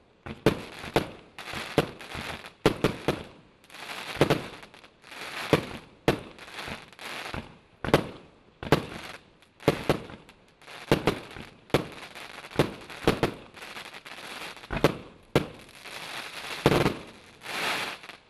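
King Cobra consumer firework barrage firing: a rapid series of sharp bangs, about one or two a second, each followed by a hissing crackle. It stops suddenly at the end.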